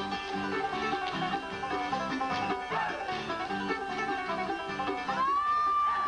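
Bluegrass dance tune with banjo and guitar keeping a steady, bouncing rhythm for clogging. About five seconds in, a high note slides up and is held.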